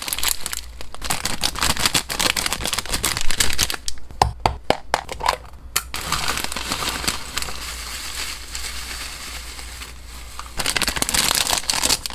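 Clear plastic snack bag crinkling and dried hamster snacks (dried apple slices and shredded cabbage) rustling as they are tipped out into a plastic tub. Dense crackling with many sharp clicks, louder again near the end.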